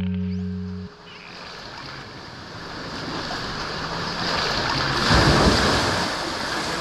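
Background music with a held low note stops about a second in. Then sea water washes and wind rushes over the microphone at the water's surface, loudest about five seconds in.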